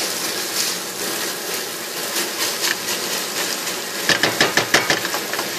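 Onion mixture frying in a stainless steel pot, a steady sizzle, while a silicone spatula stirs and scrapes around the pot. About four seconds in the stirring speeds up into a quick run of scraping strokes.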